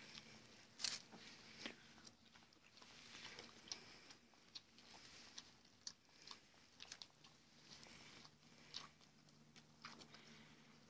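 Faint suckling of nursing puppies at their mother's teats: irregular wet smacking clicks, a few a second, over a low steady hum.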